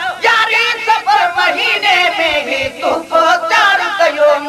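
A voice singing a Sindhi devotional naat, the melody held and ornamented with a wavering pitch.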